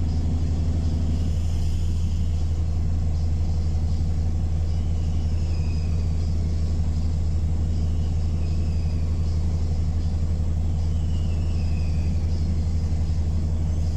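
Bus running with a steady low engine drone, heard from inside the passenger saloon. A few faint high whines slide down in pitch over it.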